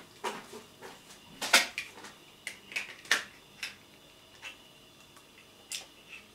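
A series of short, sharp clicks and light knocks at irregular intervals, as of small hard objects being handled; the loudest come about a second and a half in and again about three seconds in.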